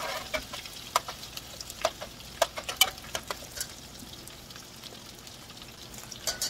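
Sliced sausages frying in hot oil in a steel pot: a steady sizzle with scattered sharp crackles and pops, most of them in the first few seconds.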